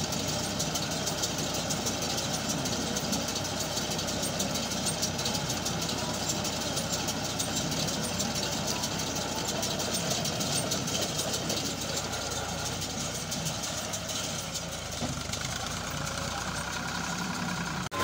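Tractor engine running steadily as it tows a round baler across a field.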